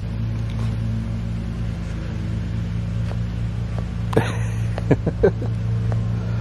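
Lawnmower engine running steadily with a low, even hum. A few short, sharp sounds break in about four to five seconds in.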